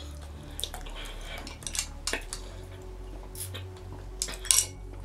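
A few light clinks and taps of a drinking glass and tableware as the glass is handled and drunk from. The loudest taps come about four and a half seconds in.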